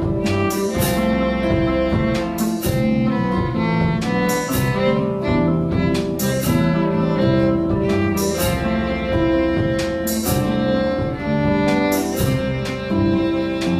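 Live jazz combo playing an instrumental: acoustic guitar, electric bass, drum kit and keyboard, with held notes over a walking bass and repeated cymbal hits.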